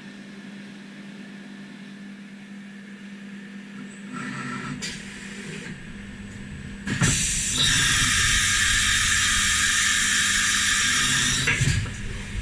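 Syil CNC milling machine running with a steady low hum, its noise picking up about a third of the way in. A loud, even hiss starts suddenly a little past halfway and stops near the end.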